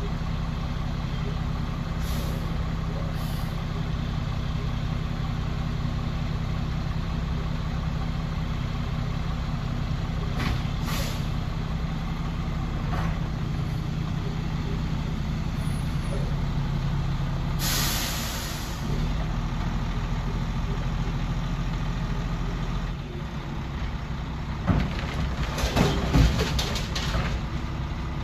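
Mack LE garbage truck's engine running steadily, broken by short air hisses and a longer air-brake hiss about two-thirds of the way through. Near the end comes a run of loud knocks and bangs.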